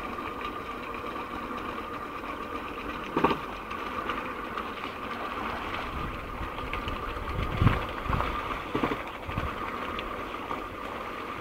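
Gearbox of an ox-driven water pump turning with a steady mechanical whir and whine, with a few dull thumps about three seconds in and again between seven and nine seconds in.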